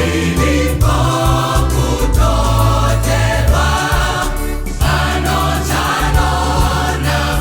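A choir singing a gospel song in harmony, in phrases of about a second or two, over a strong, steady bass accompaniment.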